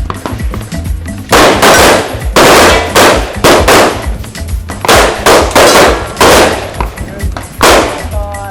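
A string of about ten pistol shots, irregularly spaced over several seconds, with a pause before the last one.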